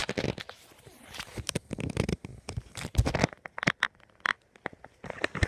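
Handling noise: irregular clicks, knocks and rustling as a handheld phone camera is moved and covered and plush toys are shifted about.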